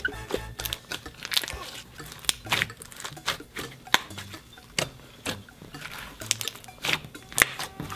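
Slime squished and kneaded by hand, giving irregular sticky clicks and pops, about one or two a second.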